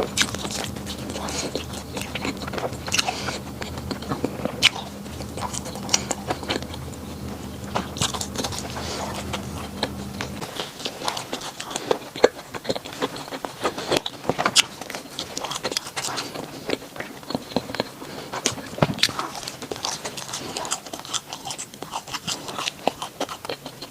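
A person biting and chewing bread close to the microphone, with many sharp, crackly crunches. A low steady hum runs underneath and cuts off about ten seconds in.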